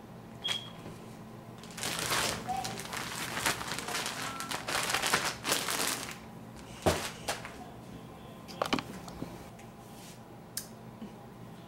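Zip-top plastic bag crinkling as chicken wings are shaken inside it to coat them, for about four seconds, followed by a couple of sharp knocks.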